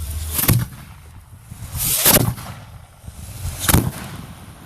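Aerial fireworks going off: three loud bangs about a second and a half apart, the middle one the longest.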